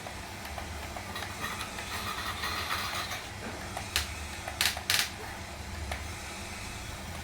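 Small electric gear motors of a remote-control toy construction vehicle whirring, with a few sharp clicks of plastic parts knocking, one at about four seconds and two close together near five seconds.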